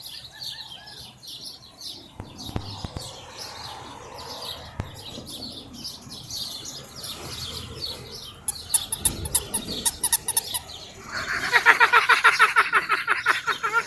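Birds chirping, with many short high chirps. A loud, fast trill comes in about three-quarters of the way through and is the loudest sound.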